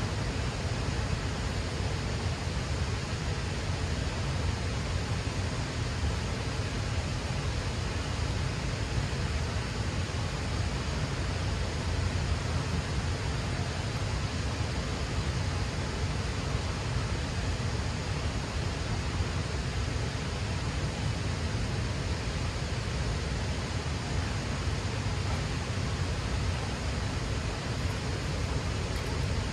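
Steady rushing of water pouring through the dam, a constant low-heavy roar with no breaks.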